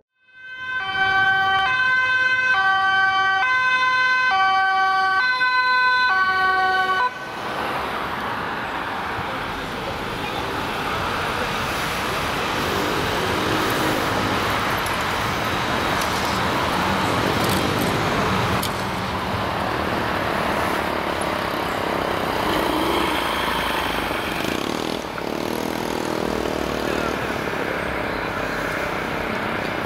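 Two-tone emergency siren, switching between a high and a low note about every half second, cutting off abruptly about seven seconds in; then a steady wash of street and traffic noise with a siren fainter in the background.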